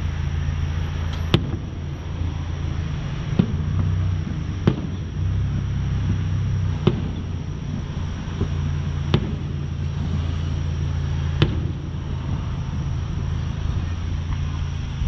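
Distant aerial fireworks bursting: six sharp bangs about every two seconds, the first the loudest, over a steady low rumble of road traffic.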